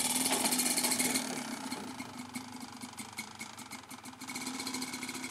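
Dirt bike engine running as the bike is ridden up a ramp into a trailer: louder for the first second or so, then easing off to a steady idle.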